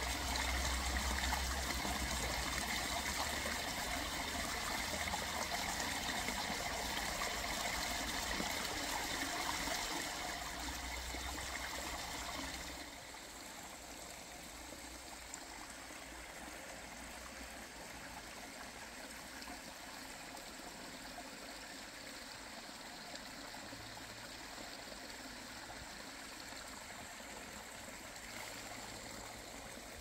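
Small woodland stream trickling over leaves and stones, close and fairly loud at first, then suddenly quieter about thirteen seconds in, running on as a steady trickle.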